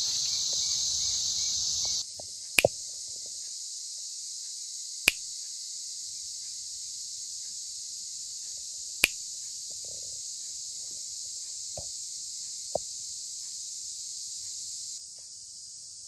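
Cicadas droning in a dense chorus, a steady high buzz that drops to a quieter level about two seconds in. A handful of sharp clicks sound through it.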